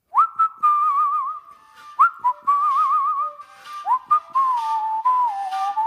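Background music: a whistled melody in three phrases, each opening with a quick upward scoop, with wavering trills and a slow downward drift in the last phrase, over light clicking percussion.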